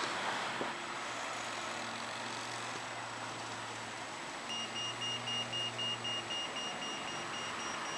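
Edinburgh tram (CAF Urbos 3) approaching along the track with a low steady hum, over outdoor traffic noise. About halfway in, a rapid high electronic beeping starts, about four beeps a second.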